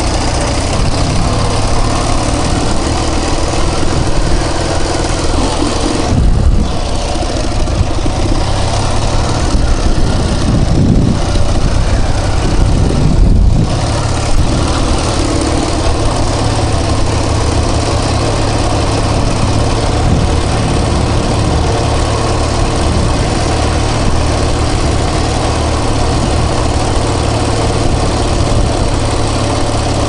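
Ural Tourist sidecar motorcycle's flat-twin engine running while under way, with heavy wind noise on the microphone. The sound dips briefly three times around the middle.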